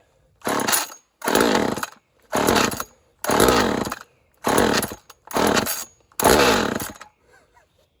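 Two-stroke chainsaw being pull-started cold: seven quick pulls on the recoil starter, the engine sputtering briefly on each pull and dying again. It is a hard-starting saw that will not keep running.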